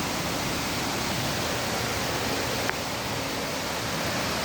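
Waterfall rushing: a steady, even roar of falling water, with one short click about two and a half seconds in.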